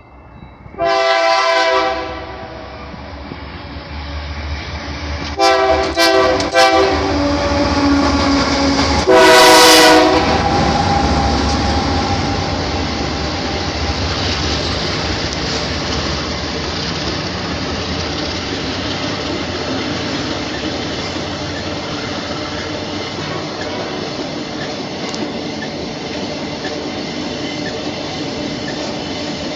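Horn of MRS GE diesel-electric freight locomotives (AC44i and ES44ACi) sounding as the train approaches: one blast about a second in, a few short blasts around six seconds, and the loudest blast near ten seconds. After that, a steady loud noise of the locomotives and the long line of iron-ore gondola wagons rolling past on the track.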